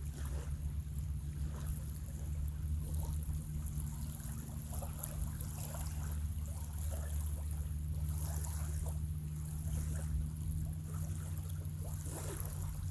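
Breeze rumbling steadily on the microphone, with faint scattered rustles throughout.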